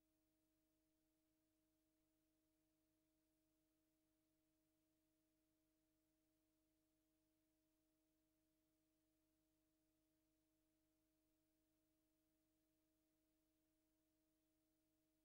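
Near silence, with only a very faint steady hum of a few held tones.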